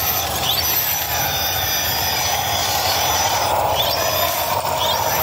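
Small electric RC crawler truck's motor and gearbox whining as it climbs over rock, a steady whine that wavers in pitch with the throttle.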